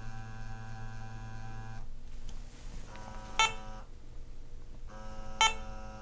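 A steady hum from the SENSIT CO carbon monoxide analyzer's sampling pump cuts out twice. Two short electronic beeps from the instrument come about two seconds apart, the alert that the inlet is blocked during a flow check.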